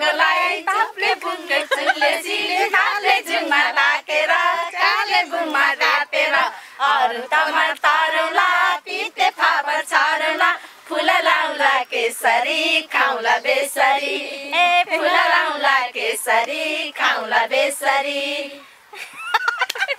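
Women singing a song unaccompanied, a steady melodic line with no instruments, breaking off about a second before the end.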